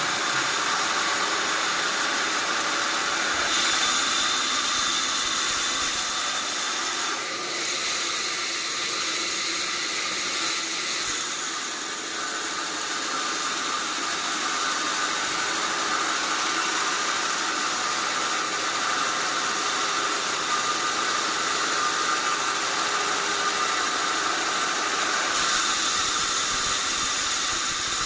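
Sawmill saw running steadily, a continuous loud hiss with a fainter hum underneath, shifting slightly in tone a few times.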